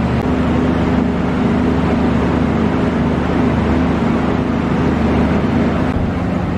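Steady low mechanical drone with a few held humming tones, the engine-like background hum of a railway station.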